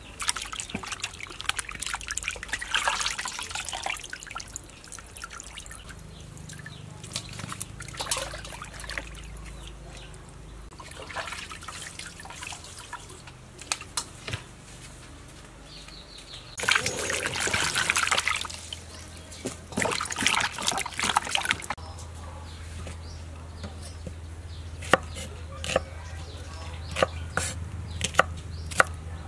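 Water splashing and trickling in a steel basin as whole squid are rinsed by hand, with louder sloshing and pouring partway through. Near the end, a knife chops shallots on a wooden cutting board in a series of sharp knocks.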